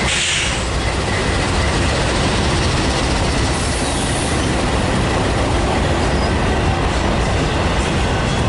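Freight train rolling past close by: a steady loud rumble and rattle of the cars on the rails, with a faint high wheel squeal and clicks of wheels over rail joints near the end.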